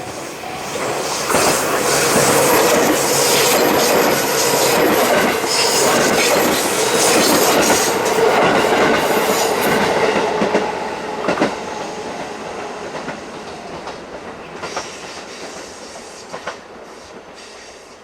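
Six-car JR 221 series electric multiple unit passing close by over a level crossing, its wheels clattering over the rail joints. It grows loud within the first two seconds, stays loud for about nine seconds, then fades away with a few last clicks as the train moves off.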